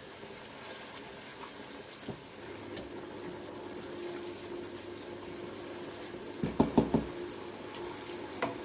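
Stovetop cooking noise: a steady hiss from a pot of boiling pasta water and pans on the hob. About two-thirds of the way in, a quick run of about four knocks, a metal spoon striking cookware, is the loudest sound. A faint steady hum comes in about three seconds in.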